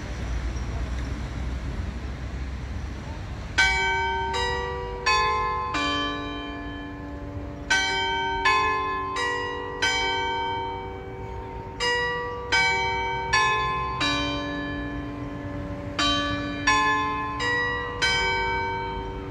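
Town hall clock tower bells chiming the run-up to the hour: sixteen strokes in four groups of four notes, starting about three and a half seconds in. Each stroke rings on and overlaps the next. A low steady rumble runs underneath.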